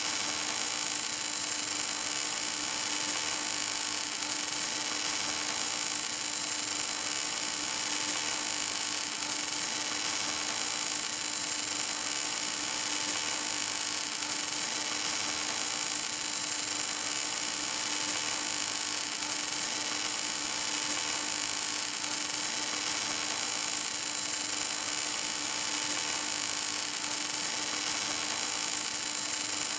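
Welding arc of an HK-11W automatic pipe welding tractor burning steadily along a pipe joint: an even, unbroken hiss with a constant hum underneath.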